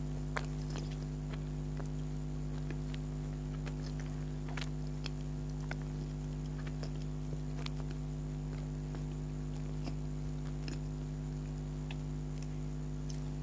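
Close-up eating sounds of soft donuts being chewed: small irregular mouth clicks and smacks over a steady electrical hum.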